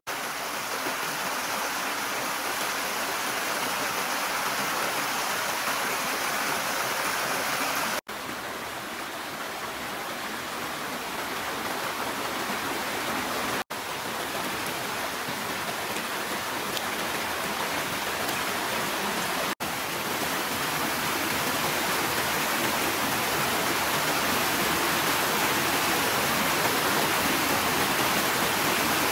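Rocky mountain stream rushing over boulders in small cascades: a steady noise of running water, broken by three split-second dropouts.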